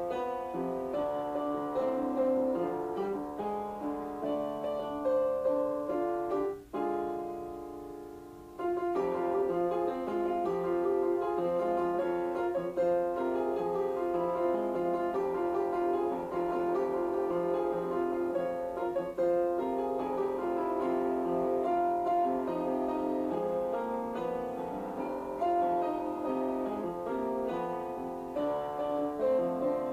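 Background piano music, with a brief pause about seven seconds in.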